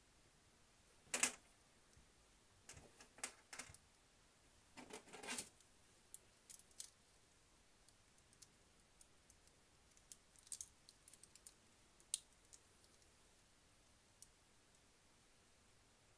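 Small metal and plastic parts of a model locomotive motor being handled and set down on a metal workbench: scattered clicks and light taps, the loudest about a second in, a few clusters in the first six seconds, then sparser single ticks.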